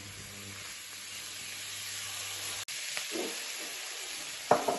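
Mixed vegetables and chicken sizzling in hot oil in a stir-fry pan, a steady hiss. A short, louder sound comes near the end.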